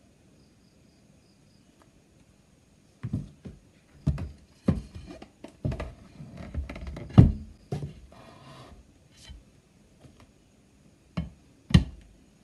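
Irregular handling knocks, taps and rubbing on a glass-topped bathroom scale, starting about three seconds in. They end with two sharp taps near the end as a smartphone is set down on the glass.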